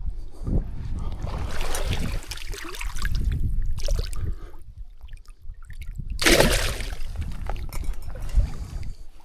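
Water splashing and sloshing in irregular bursts, the loudest about six seconds in, over a constant low rumble of wind on the microphone.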